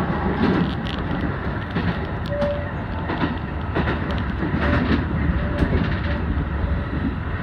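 Shin-Keisei Electric Railway commuter train running at speed, heard from the cab: a steady rumble of wheels on the rails with scattered clicks over the rail joints.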